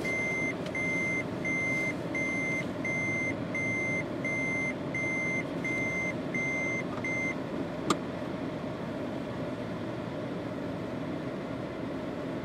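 A vehicle's electronic warning beeper beeping at a steady high pitch about twice a second, stopping about seven seconds in, over the steady low rumble of an idling vehicle engine. A single sharp click comes just after the beeping stops.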